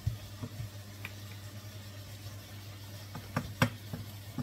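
Wooden spoon stirring in a pot of frying bacon and onions, knocking and scraping against the pot in a few sharp clacks, the loudest near the end, over a steady low hum.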